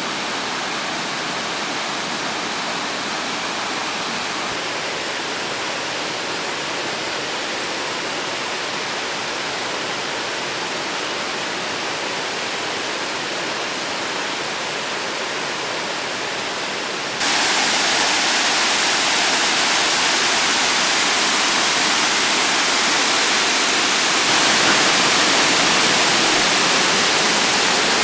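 Waterfall rushing steadily. About seventeen seconds in it jumps suddenly louder and hissier, and it swells a little more near the end.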